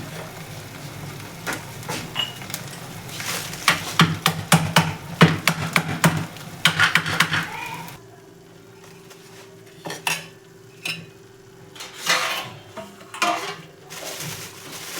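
Rapid sharp clicks and knocks of kitchen utensils as almonds are broken up, thick for the first half and then thinning out to a few scattered clinks.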